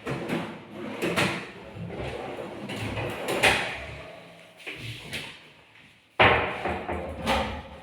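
Kitchen cabinet drawers and doors being opened and shut: a series of slides and knocks, with a sudden louder one about six seconds in.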